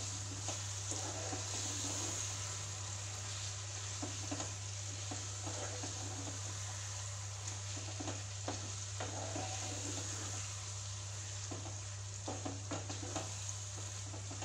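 Chicken pieces sizzling in a frying pan as a wooden spatula stirs and scrapes them through a thick cashew, almond and tomato paste, with scattered knocks of the spatula against the pan. A steady low hum runs underneath.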